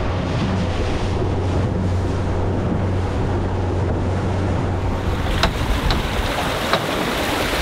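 Wind buffeting the microphone and water washing around a small boat, with a low steady hum for about the first five seconds. Three sharp clicks come in the second half.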